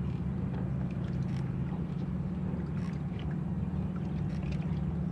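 Boat motor running with a steady low hum, with a few faint scattered clicks over it.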